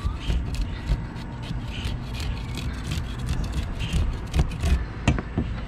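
Kitchen knife scraping scales off a small barracuda on a plastic cutting board: quick repeated scraping strokes, a few a second, with the sharpest strokes about four and five seconds in. A low rumble runs underneath.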